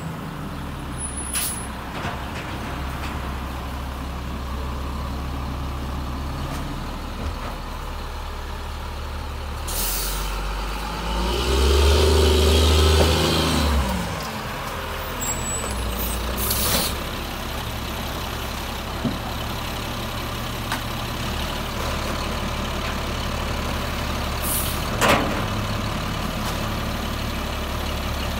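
Sterling Condor garbage truck's diesel engine running as the truck pulls up. It revs loudly for a few seconds about halfway through and then settles to a steady idle. Sharp air-brake hisses come about ten seconds in, again around seventeen seconds and once more near twenty-five seconds.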